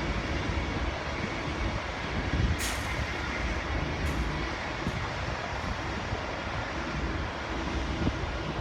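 V/Line N class diesel locomotive N453 idling at the platform with a steady low rumble, broken by a few short hisses of air about two and a half, four and five seconds in.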